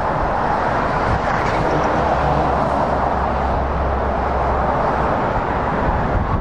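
Dense motorway traffic passing: a steady roar of tyres from lorries and cars, with a low diesel engine drone from a passing lorry that sets in about two seconds in and drops away near five seconds.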